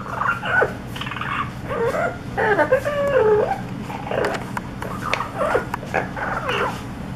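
Yellow-naped Amazon parrot vocalising: a run of short calls whose pitch slides up and down, with the longest, loudest stretch from about two to three and a half seconds in.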